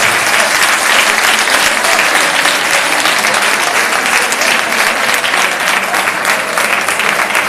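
Audience applauding steadily, many hands clapping at once without a break.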